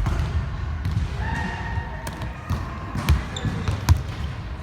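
Volleyball being struck and bouncing on a gym floor: several sharp smacks, irregularly spaced, echoing in a large hall.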